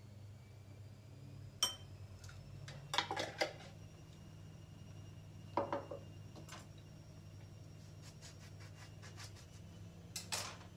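A spoon and glass jars and bowls clinking and knocking on a kitchen counter while a spoonful of honey is added: a sharp clink about one and a half seconds in, a quick cluster around three seconds, more around six seconds, and a last pair near the end. A low steady hum runs underneath.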